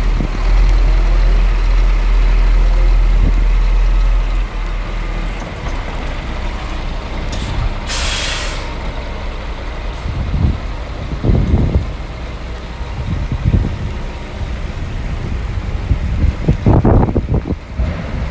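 Short, sharp hiss of compressed air from a Scania G420 tractor unit's air system, lasting under a second about eight seconds in. A low rumble is heavy for the first few seconds, and dull bumps come near the end.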